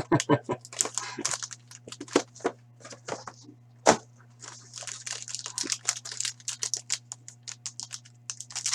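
Packaging of a hockey card box being torn open and crinkled: quick irregular rips and crackles, with one sharper knock about four seconds in.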